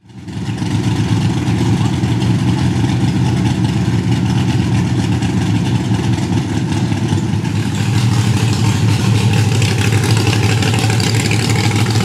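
Big-block V8 of a rear-engine S10 Blazer mud truck idling with a steady, deep rumble, fading in at the start and growing a little stronger in the second half.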